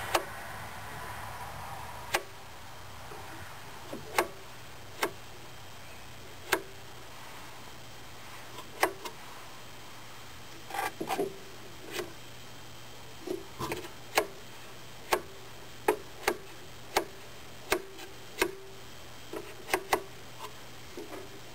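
Irregular sharp clicks and light knocks, about twenty of them, some coming in quick pairs, from handling the multimeter and its test leads.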